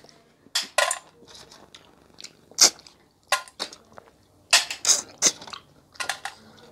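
People sucking cooked river snails out of their shells: a series of short, sharp slurps with quiet gaps between, along with faint clinks of shells on a steel plate.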